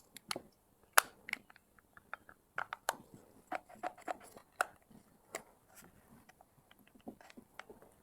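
Irregular clicks, knocks and crackles of a Karcher OC3 portable washer's plastic parts being handled and fitted back together, the loudest knock about a second in.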